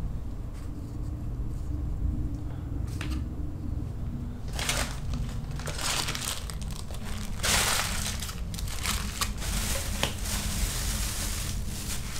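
Plastic wrappers and packaging crinkling and rustling in repeated bursts as they are gathered up off the floor, starting about four and a half seconds in. A steady low hum runs underneath.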